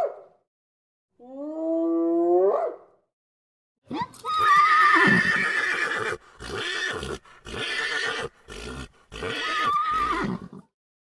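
Animal calls: a pitched call rising in pitch about a second in, then a run of four loud, harsh calls with a wavering tone through them, ending shortly before the end.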